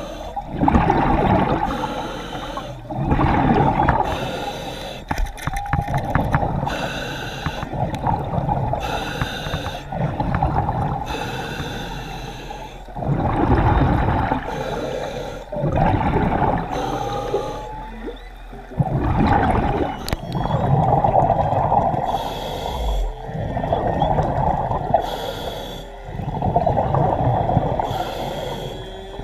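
A snorkelling diver breathing hard through the snorkel, the breaths coming about every two seconds, with water sloshing around the mouthpiece.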